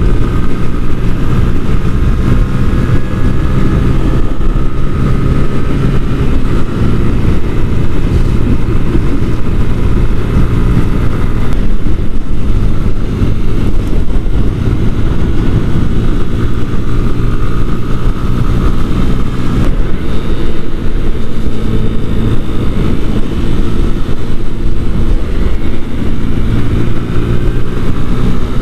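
A 125cc motorcycle engine running steadily at road speed, heard from the riding bike, its note drifting gently up and down.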